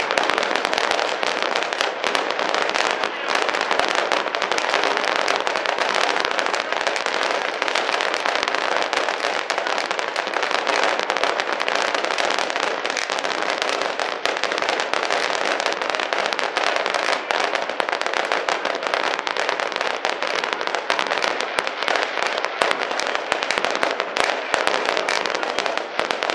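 A long string of firecrackers crackling without pause, a dense rattle of small sharp bangs that keeps an even level throughout, with stadium crowd noise under it.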